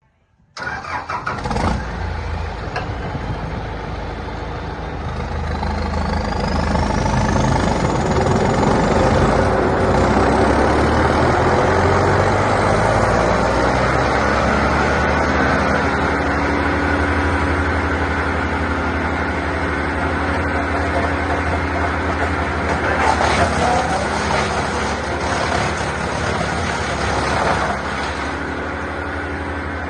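Bandit 1590 drum wood chipper's diesel engine starting abruptly and running, climbing in speed over the first several seconds with a rising whine, then holding a steady run. A few sharp clatters come near the end, then the level drops slightly.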